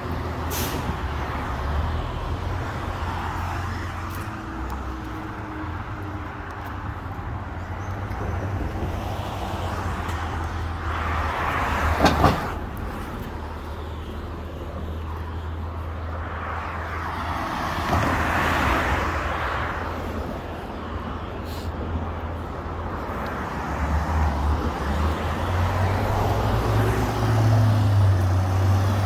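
Heavy diesel engine of a front-loading garbage truck running with a low, steady rumble. Twice a swell of rushing noise rises and falls, the first ending in a sharp clack, and the engine grows louder near the end.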